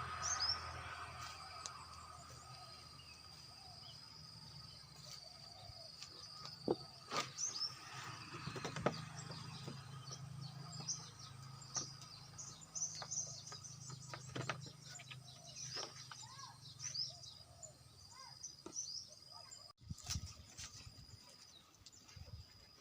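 Small birds chirping over a steady high insect drone and a low hum, with a few sharp knocks.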